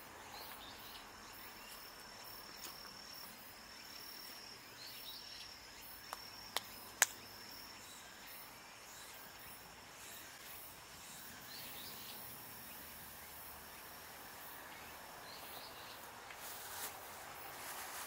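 Outdoor ambience: a steady, high-pitched insect trill over faint background noise, with three sharp clicks about six to seven seconds in.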